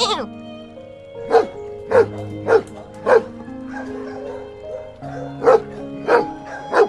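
Dog barking in short, sharp single barks: four in quick succession, a pause, then three more, over background music.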